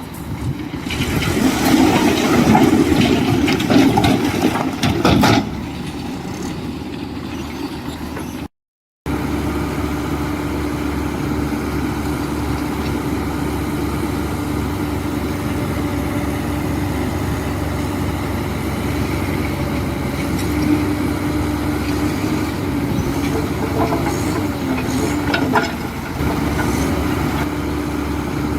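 Diesel engine of heavy earthmoving machinery running. It is louder and rougher for the first few seconds, drops out for half a second, then settles into a steady drone.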